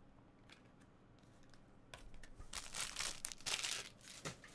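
Plastic cello-pack wrapper crinkling and tearing in the hands: a few quick rustling bursts starting about two seconds in.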